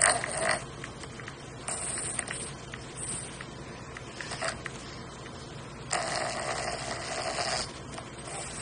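Dog snoring in irregular rasping bursts, the longest lasting nearly two seconds near the end.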